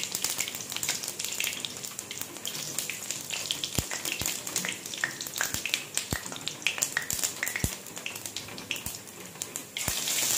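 Whole cumin seeds and dried red chillies sizzling in hot oil in a kadai as a tempering, a steady hiss with frequent sharp pops and crackles. The sizzle gets louder near the end.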